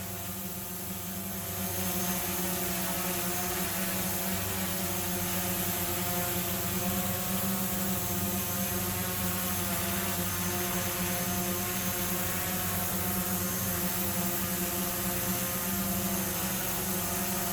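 Autel Evo quadcopter drone hovering, its motors and propellers making a steady buzzing hum with several pitched tones. It gets a little louder about two seconds in. Heard from about one metre to the side, it reads about 64 dB on a sound meter.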